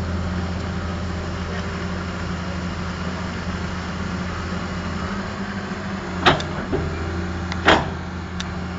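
Heavy construction machine's engine running steadily with a low hum. Two louder sharp knocks come about six and a half and eight seconds in, with lighter clicks around them.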